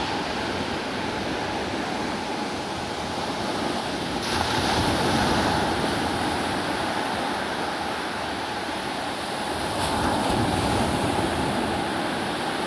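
Sea waves breaking and washing up the shore at high tide, a steady wash that swells louder about four seconds in and again near ten seconds.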